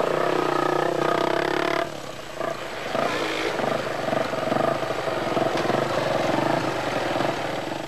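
Off-road enduro motorcycle engine revving under load on a steep climb. Its level drops a little under two seconds in, and the pitch then keeps shifting up and down.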